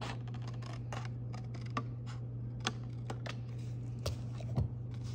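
Scissors snipping through a cardstock template, a quick irregular run of crisp cuts, over a steady low hum. Two louder knocks come near the end, as the cut-out template is handled.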